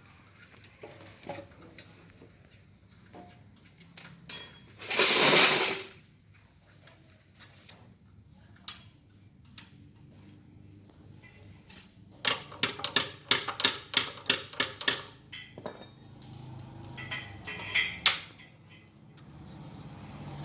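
Metal tools and parts clinking and knocking during hands-on disassembly of a generator alternator, with a loud rushing noise lasting about a second, then a quick run of sharp metal strikes about four a second, like hammering.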